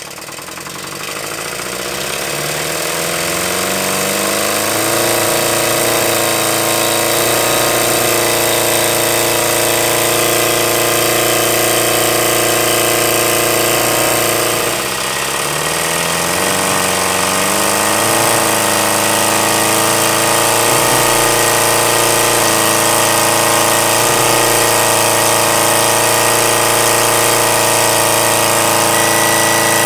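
Small model steam engine on 50 psi steam at wide-open valve, driving a small generator under electrical load. It speeds up over the first few seconds, falters briefly about halfway, then speeds back up and runs steady at high speed.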